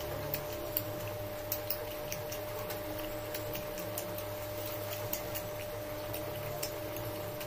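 Quiet room tone with a steady high whine and a low hum, dotted with soft irregular clicks from lip and mouth movements close to the microphone.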